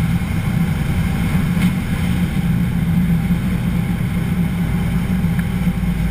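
Sportfishing boat's engines running steadily: a constant low hum.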